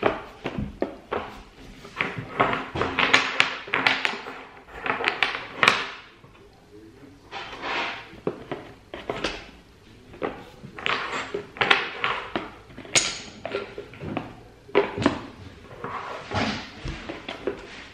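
Small wooden stacking-game blocks clacking against each other and knocking on a tabletop as they are handled, in clusters of quick clicks and knocks with short pauses between.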